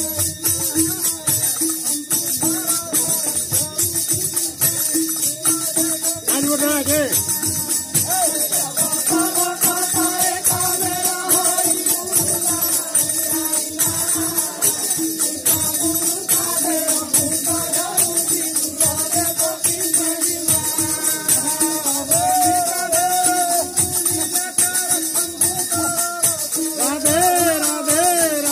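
Sambalpuri Krustaguru kirtan music: singers' voices over a barrel drum and constant metallic jingling percussion in a fast, even rhythm.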